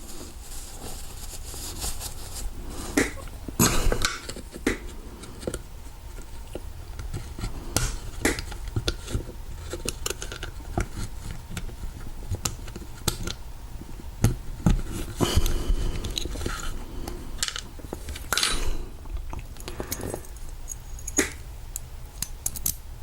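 Scattered small metal clicks, taps and scrapes of hands working a Master Lock Pro Series padlock core apart, over a faint low hum.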